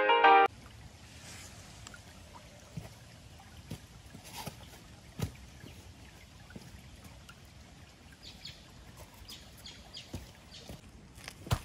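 Shallow creek trickling softly over rocks, with scattered small ticks and a few faint bird chirps. Piano music cuts off about half a second in, and a sharp knock sounds at the very end.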